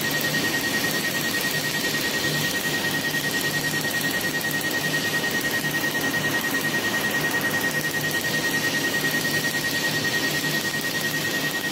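Steady rush of air from the black hose nozzle held over the skin beside a Picostar picosecond laser handpiece, with a steady high tone and rapid, evenly spaced ticking from the laser during tattoo removal.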